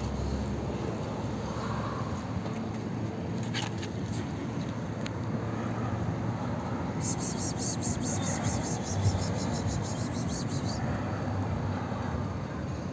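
Steady outdoor background noise by the sea. About seven seconds in, a high, fast pulsing buzz of about five pulses a second joins it for nearly four seconds.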